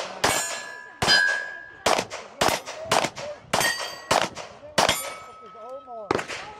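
Pistol shots fired in quick succession at steel targets, about two a second, with hits answered by a ringing metallic clang from the steel plates.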